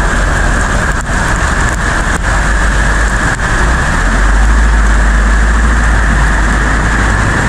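Fast floodwater rushing down a street, a loud, steady noise, with a heavy low rumble that swells about four seconds in and a few light knocks.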